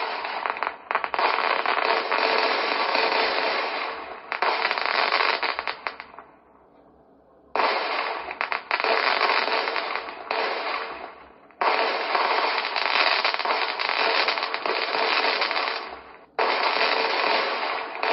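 Fireworks display: aerial shells bursting in dense, rapid volleys of bangs and crackling, each volley starting suddenly, with a short lull about six seconds in.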